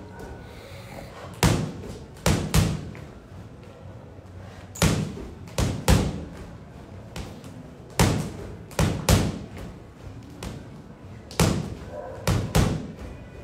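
Boxing gloves punching a freestanding heavy bag in a jab, jab, cross combination: four sets of three thuds, each a single punch and then two quick ones close together, repeating about every three and a half seconds.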